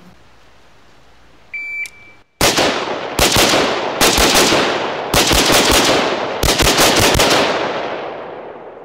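A shot timer beeps once. Then a short-barreled 5.56 carbine fires 15 rounds in five quick strings of one, two, three, four and five shots, in about five seconds, with the last report ringing out and fading afterwards.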